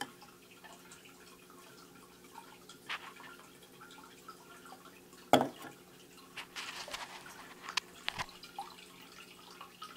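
Aquarium salt water dripping and splashing as a swing-arm hydrometer is filled and handled, with a few short sharp knocks, the loudest about five seconds in. A faint steady hum runs underneath.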